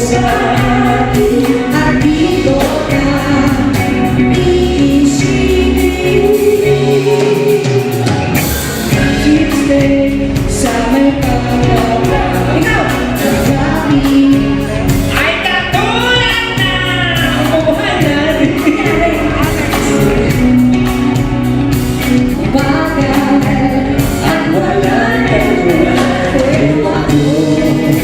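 Live band music with singing: a lead voice with backing voices over a steady drum beat.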